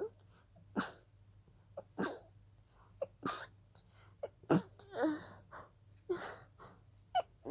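A person sneezing over and over in a fit of breathy, stifled sneezes, about one a second, with quick breaths in between. The fit is set off by a pollen allergy.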